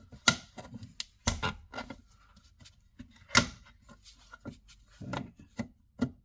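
Irregular clicks and knocks of hands working a plastic wall socket and its wiring as it is pushed back into the box. Three sharper knocks stand out, about a third of a second, just over a second and about three and a half seconds in.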